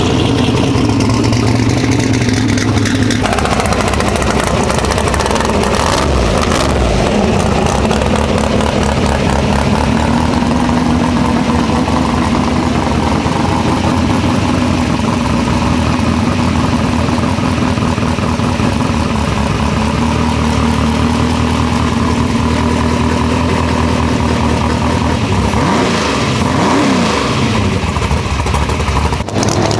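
A vehicle engine running steadily at an even pitch, with a short rise and fall in pitch near the end.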